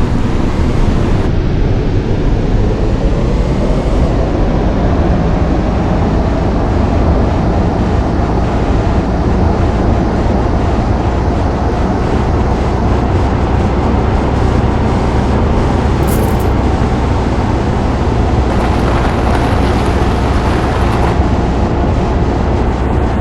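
Steady, loud rumbling noise, heaviest in the low range, with no clear pitch or rhythm.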